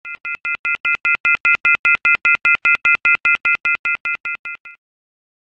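Rapid electronic beeping, about five short beeps a second, each beep a chord of high steady tones. The beeping swells in over the first second, then fades and stops near the end.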